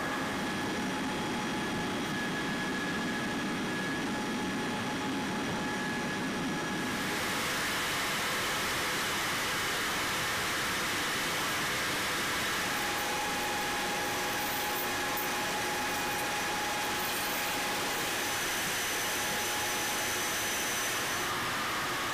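Steady mechanical noise, an even hiss and hum with a few faint steady tones, turning brighter and hissier about seven seconds in.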